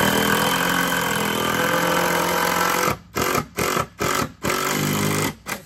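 Power drill driving a screw into a wood block: one long run of about three seconds, then four or five short bursts as the screw is run home.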